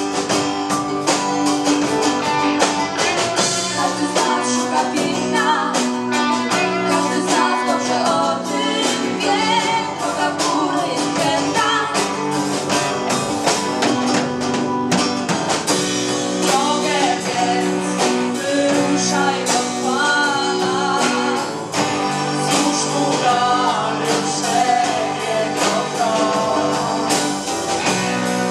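Live band music: women singing into microphones over guitar accompaniment, a Polish carol-style song.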